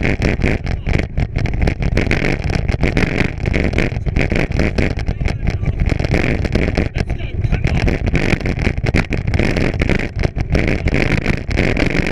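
Bicycle being pulled along a trail by dogs at speed: tyres rumbling over rough ground and wind rushing over the microphone, a steady, choppy rumble.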